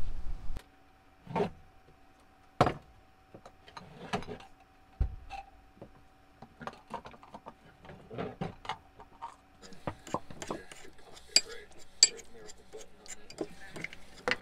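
Low wind rumble on the microphone that cuts off about half a second in, then clinks, knocks and rattles of jars and plastic containers being handled and taken out of a kitchen cupboard, coming thicker near the end, over a faint steady hum.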